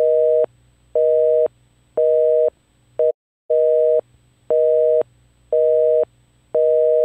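Telephone busy signal: a steady two-tone beep repeating about once a second, half a second on and half a second off. Just after three seconds in, one beep is cut short and the pattern restarts half a second later.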